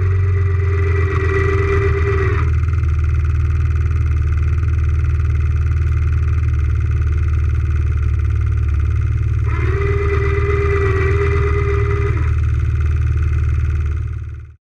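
ATV engine idling steadily while an electric winch runs with a flat, steady whine: once at the start, stopping about two seconds in, and again for about three seconds later on. The sound fades out near the end.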